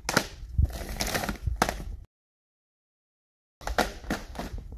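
Plastic DVD and Blu-ray cases clattering and knocking against each other as hands rummage through a bag of them. The sound is a run of sharp clicks and taps, broken by a dead gap of about a second and a half in the middle.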